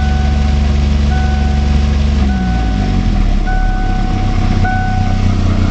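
Ford Mustang SVO's turbocharged 2.3-litre four-cylinder engine running with the transmission in gear and the wheels turning free, its revs falling about two seconds in and settling lower. An electronic beep sounds on and off about once a second over it.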